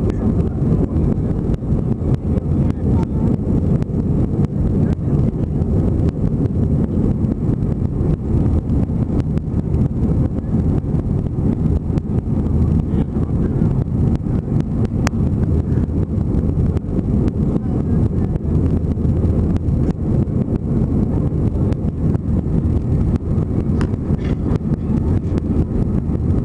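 Steady low engine and airflow noise inside the cabin of an Airbus A321 climbing after takeoff, unchanging throughout.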